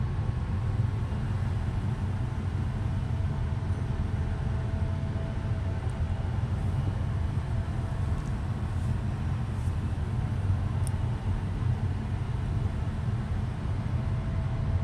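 Steady low rumbling background noise with no speech. A faint steady tone sits above it, and there are a few faint ticks.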